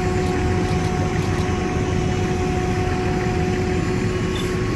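A fire engine's motor running steadily: a low rumble with a steady whine held on one pitch.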